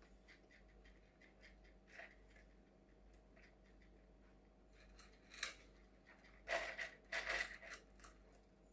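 Light metallic clicks and rattles of a cuckoo clock's chain links being handled while the chain is untangled, with a louder rattle of the chain a little past the middle.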